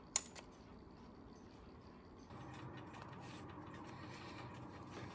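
A sharp mechanical click from the flip clock radio, with a softer click just after, then a faint hiss that comes up a little over two seconds in.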